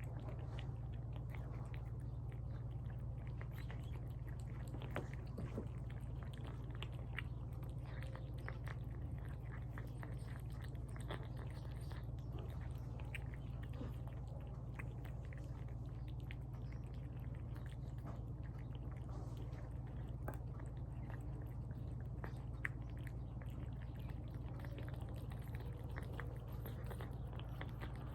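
Cats eating wet tuna from bowls: close, wet chewing and smacking with many small irregular clicks, over a steady low hum.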